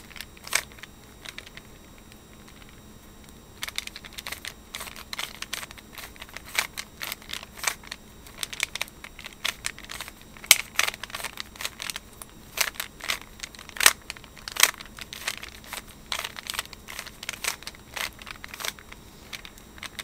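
Plastic 3x3 Rubik's Cube being turned quickly by hand: quick, irregular clicking and clacking of the layers. A few turns at first, a lull about a second in, then a dense run of rapid turns from about four seconds on.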